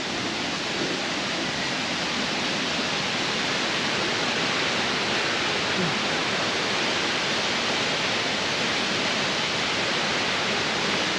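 Waterfall's steady rushing roar of falling water, an even unbroken noise.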